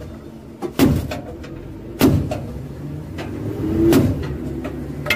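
Inside an armoured fighting vehicle on the move: the engine runs with a steady low hum while two sharp loud bangs hit, one just under a second in and one at about two seconds, followed by a short pitched sound rising near four seconds.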